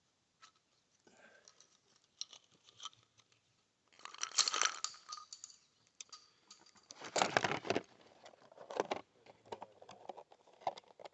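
Rustling, crinkling and clicking handling noise, loudest in two spells about four and seven seconds in. No gunshot.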